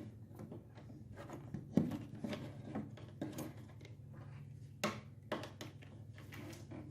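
Irregular small knocks, clicks and scrapes of objects being handled on a work surface, with the sharpest knocks a little under two seconds in and near five seconds in, over a steady low hum.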